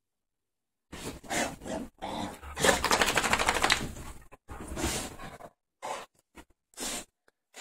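Freshly bathed dog rubbing and rolling on a bed's comforter: bursts of fabric rustling and scuffling, loudest from about two to four seconds in, then a few short scuffs.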